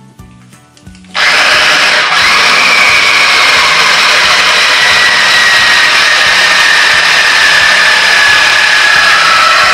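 Small electric food chopper switched on about a second in, its motor running loudly and steadily as it beats an egg, sugar and flour batter. Its high whine slowly drops in pitch.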